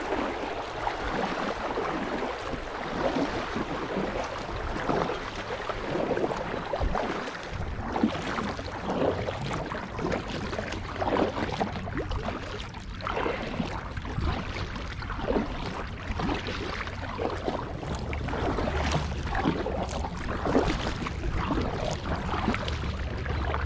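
Kayak paddle strokes, the double-bladed paddle dipping and splashing into the river again and again at an uneven pace. A low steady rumble comes in for the last few seconds.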